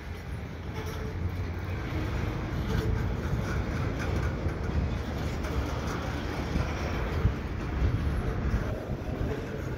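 A yard switching locomotive and a cut of freight cars rolling slowly on the rails: a steady low rumble of wheels and engine, with faint squeals from the wheels.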